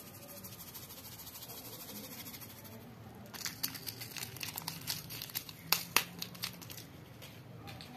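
Paper sugar stick packet crinkling and crackling in the fingers as sugar is shaken out of it, a run of sharp crackles starting about three seconds in and easing off near the end.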